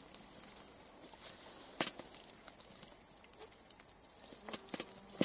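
Faint taps and clicks of a wire-mesh fish trap being handled and shaken over a metal bucket as small fish are emptied into it: one tap about two seconds in and a cluster of taps near the end.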